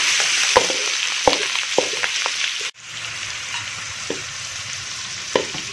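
Minced meat sizzling in hot oil in a metal wok, with the spatula scraping and knocking against the pan as it is stirred several times. About halfway through, the sizzling drops suddenly to a quieter, steady hiss.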